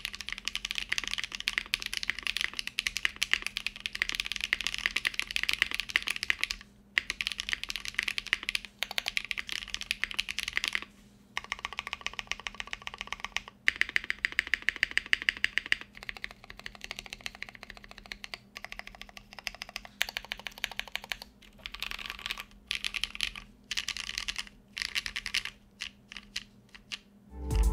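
Fast, continuous typing on a tray-mount 60% custom mechanical keyboard with tactile Drop Holy Panda R2 switches, a full brass plate, GMK ABS keycaps and foam inside the case, with a few brief pauses.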